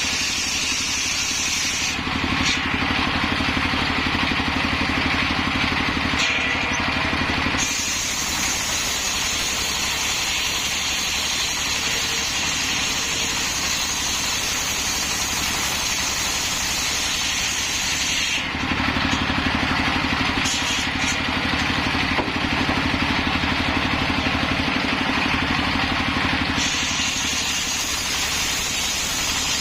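Engine-driven circular saw with a large disc blade, running steadily and cutting hard coconut-palm wood. The sound shifts several times between a hissing cutting sound and a heavier, lower engine pulse.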